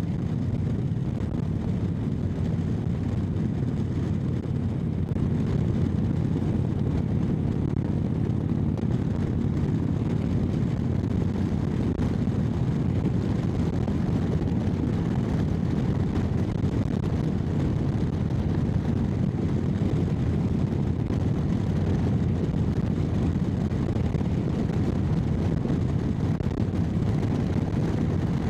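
Indian Chieftain Dark Horse V-twin with a Freedom Performance exhaust, running steadily at cruising speed. Wind rushes over the microphone.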